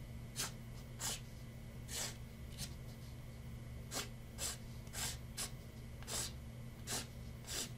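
Sharpie marker drawing short strokes on a canvas, a dry scratch of the felt tip about every half second to a second.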